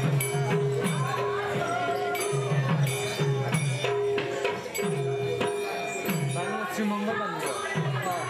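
Manipuri Raas Leela music: a hand drum beats a steady rhythm of low strokes that bend in pitch, under a held drone tone, ringing hand cymbals and a voice singing.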